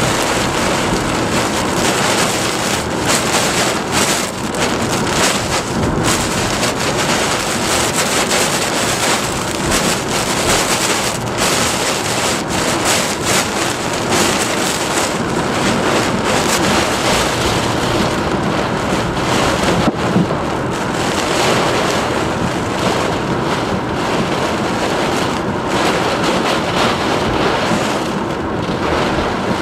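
Hurricane-force wind and driving rain, a loud, continuous rush that swells and eases a little.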